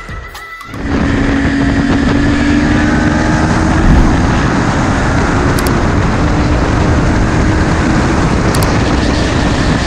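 Onboard sound of a Kawasaki Ninja 400's parallel-twin engine running at steady cruising revs, buried in heavy wind rush on the microphone; it starts abruptly about a second in and holds steady.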